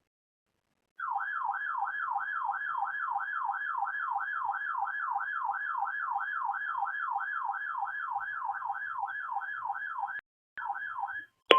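Weather radio receiver's electronic alert siren, a fast warble sweeping up and down about three times a second, signalling an incoming warning. It cuts out after about nine seconds, sounds again briefly, and ends with a sharp click.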